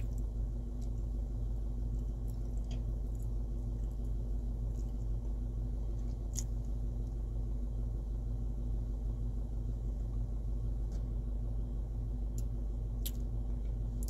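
A Volkswagen Tiguan's engine idling steadily, heard from inside the cabin as an even low hum, with a few faint clicks.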